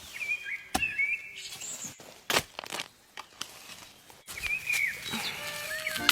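Small birds chirping in short calls, with a couple of sharp knocks, one about a second in and another past the two-second mark.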